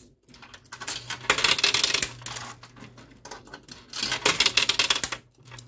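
Quarters clattering and clinking in a coin pusher machine: rapid metallic clicks in spells, loudest about a second and a half in and again about four seconds in, over the machine's faint steady hum.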